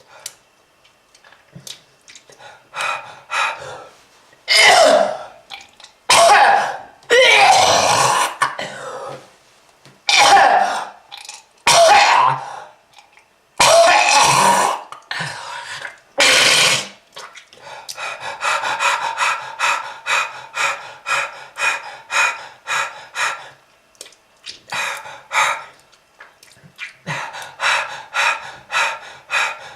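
A person coughing and hacking hard, with throat clearing, in a run of heavy coughs. From about halfway through this turns into a long string of short, quick hacking coughs, about three a second.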